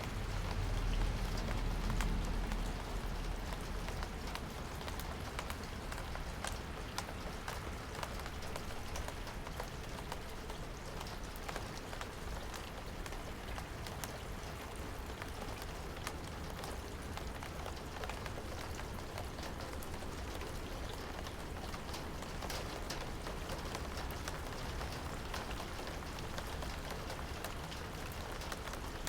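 Steady rain, with many single drops ticking sharply against a surface over an even hiss. A low rumble sits under it in the first few seconds.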